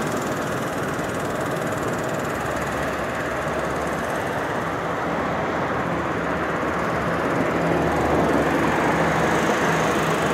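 Motorcycle engine running steadily, growing a little louder near the end.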